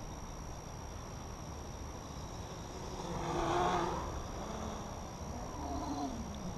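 Brushless motors and propellers of a Raven 310 quadcopter (Sunnysky X2212 1400kv motors) whirring in flight, heard from the onboard camera with a low wind rumble on the microphone. The motor sound swells louder about halfway through and shifts in pitch again near the end.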